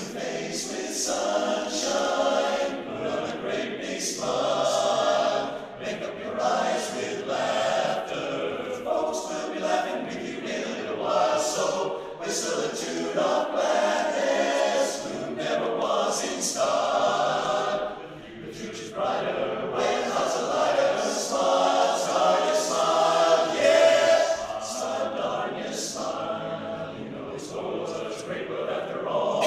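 Men's barbershop chorus singing a cappella in close harmony, many voices together.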